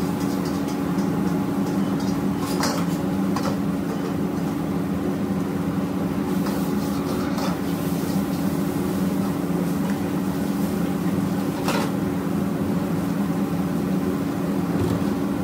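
Steady hum of a commercial gas wok range running, with a metal ladle clanking against a wok a few times during stir-frying.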